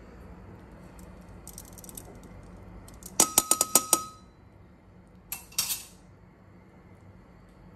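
Metal kitchen tongs clinking: a quick run of about six sharp metallic clicks with a brief ringing tone, then a second, shorter cluster of clinks about two seconds later.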